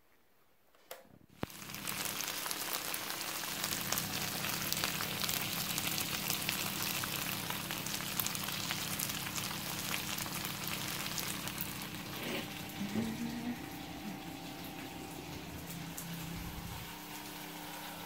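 Chicken and vegetable stir-fry sizzling and crackling in a frying pan, starting suddenly about a second and a half in, with a faint steady hum beneath it.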